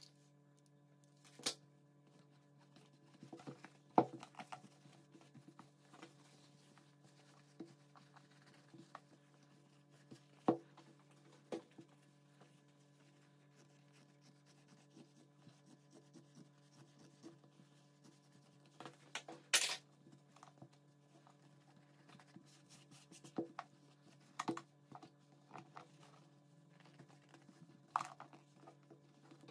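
Denim fabric being handled, rubbed and smoothed around a container, with scattered rustles, light knocks and scissors cutting the denim. The loudest is a short rasp about two-thirds of the way through, all over a faint steady low hum.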